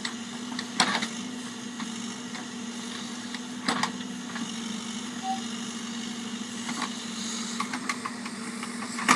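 Railroad backhoe's diesel engine running steadily, with three short sharp knocks from the machine.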